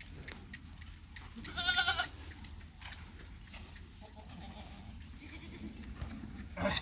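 A Sirohi goat in the herd gives one short, quavering bleat about one and a half seconds in, with a brief louder call near the end.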